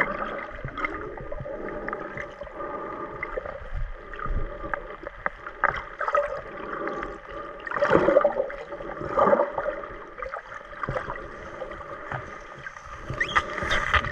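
Muffled underwater sound from a submerged camera: sloshing water and bubbly gurgles with scattered clicks and knocks, over a faint steady hum of a few tones. It swells louder twice, around the middle.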